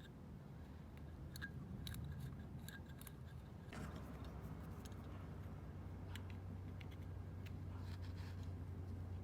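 Light, sharp metallic clicks and scrapes of small metal parts being handled. A steady low hum comes in about four seconds in.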